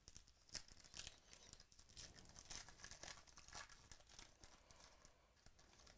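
Foil wrapper of a 2017 Panini Chronicles Baseball card pack being torn open and crinkled by hand: a faint, irregular run of crackles that thins out near the end.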